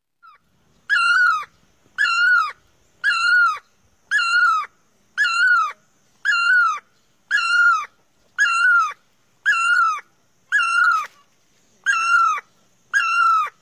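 An animal calling over and over, about once a second: a dozen loud, pitched, identical calls, each about half a second long with a short rise and fall, and quiet between them.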